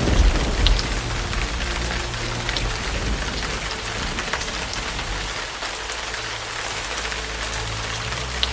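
Steady rain falling, a dense hiss with individual drops heard through it. A low rumble of thunder dies away in the first second or so.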